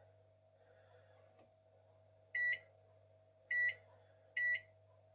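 Sharp R272WM microwave's keypad beeping three times, short single-pitch beeps about a second apart, as its buttons are pressed to step through the popcorn settings.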